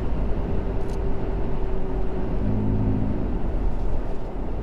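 Steady road, engine and exhaust rumble heard inside the cab of a 2022 Toyota Tacoma pickup cruising on the road.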